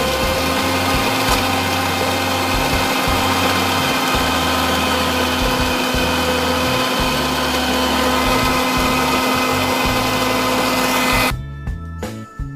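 Electric mixer-grinder with a stainless-steel jar running steadily at speed, a dense churning noise with a steady motor whine, while the lassi is blended. It cuts off suddenly about eleven seconds in, leaving background music.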